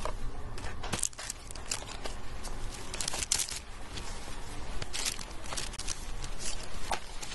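Packaging being handled on a shop counter: irregular crinkling and rustling with scattered light clicks and knocks.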